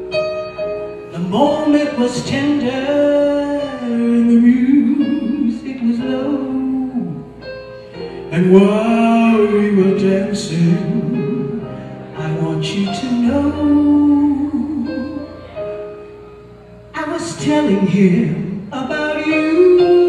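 A female vocalist singing a slow soul-jazz ballad into a microphone, backed by a live band.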